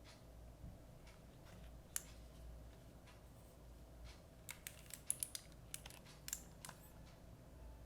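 Quiet room tone with a few faint, sharp clicks: one about two seconds in, then a loose cluster of several more a little past halfway.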